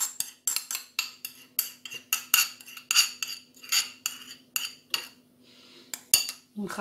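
Metal spoon scraping and tapping against a ceramic bowl, scraping melted butter out into a stand mixer bowl: quick repeated clicks and scrapes, about two or three a second, easing off near the end. A faint steady hum runs underneath.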